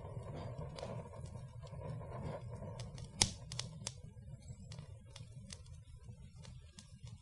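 Fire burning and crackling: a steady low rumble of flames with scattered sharp pops and snaps, one loud pop about three seconds in.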